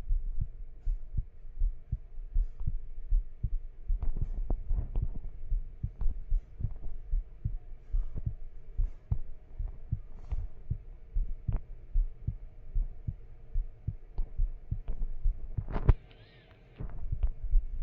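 Irregular soft low thumps and taps, several a second, over a faint steady hum; they quiet briefly near the end.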